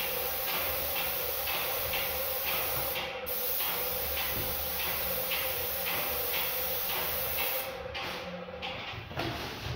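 Paint spraying from a hose-fed spray gun: a steady hiss of atomised paint with a faint regular pulse about twice a second. The spray breaks off briefly about three seconds in and stops near the end as the trigger is let go.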